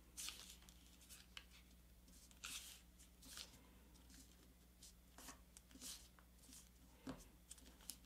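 Faint rustling and swishing of a sheet of paper being folded and creased by hand, fingers sliding and pressing along the fold in a handful of short strokes.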